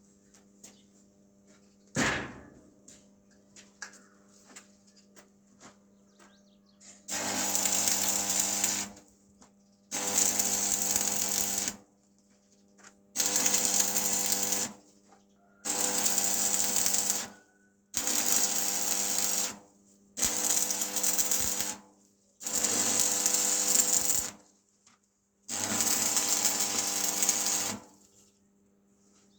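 A loud hissing machine run in eight bursts of about two seconds each, with a steady hum underneath. A single knock comes about two seconds in.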